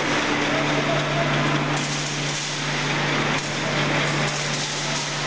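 Factory machinery running steadily: a constant motor hum under a dense, gritty rattling noise.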